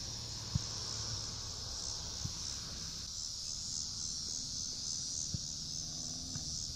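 Steady high-pitched insect chorus that pulses slightly. A few dull thumps come through under it, the loudest about half a second in.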